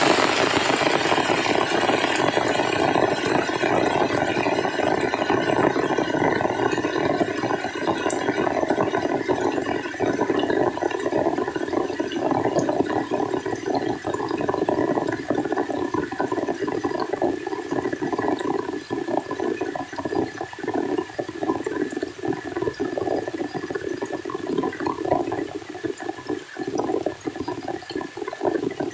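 A steady, dense rush of water with little high hiss, finely textured throughout.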